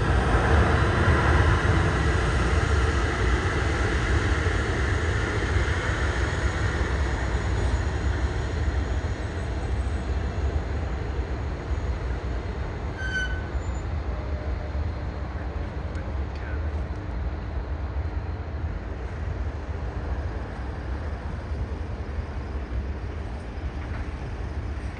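Jet airliner's engines at takeoff power on departure, a steady rumble that is loudest at the start and slowly fades as the aircraft climbs away.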